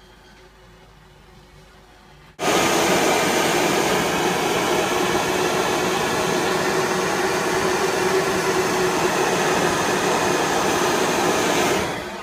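Gas torch burning with a steady, loud rushing hiss as it heats the handle joint of a metal milk can for silver soldering. It starts suddenly about two seconds in, after a short stretch of quiet, and dies away just before the end.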